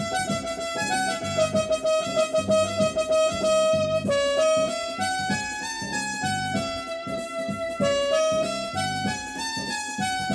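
Instrumental music: an electronic keyboard playing a melody of stepping notes over a steady low beat.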